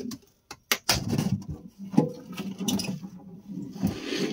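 Old 12-volt lead-acid battery being worked loose and lifted out of its compartment: its case scraping and knocking against the box, with a couple of sharp knocks about a second and two seconds in.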